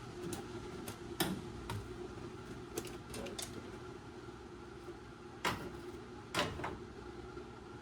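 Scattered sharp clicks and light knocks, about ten, irregularly spaced with two louder knocks past the middle, over a steady faint hum: hands and tools working on a car during wire harness removal.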